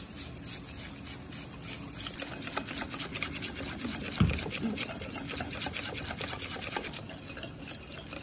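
A whisk beating egg yolks and sugar in a stainless steel bowl, the wires scraping and clicking against the metal at about six strokes a second, growing louder after the first couple of seconds. A single low thump about four seconds in.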